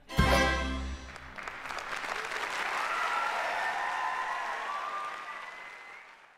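The orchestra's final held chord cuts off about a second in. A theatre audience then applauds, swelling and then slowly dying away.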